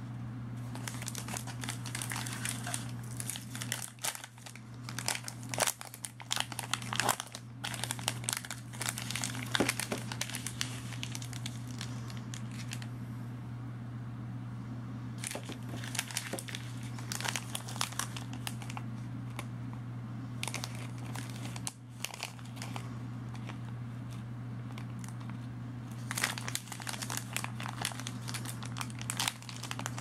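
Foil-lined snack-bar wrapper crinkling and tearing as hands pull it open and spread it, in bouts of sharp crackles with pauses of a few seconds between them.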